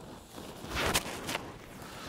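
A person blowing into a bundle of dry grass to fan a smouldering chaga ember into flame: one longer breath a little under a second in, then a short puff.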